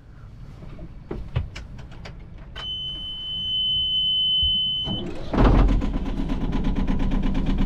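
A steady high-pitched buzzer sounds for about two seconds from the boat's engine panel, then the boat's inboard engine is cranked and catches about five seconds in, settling into a steady even-firing run.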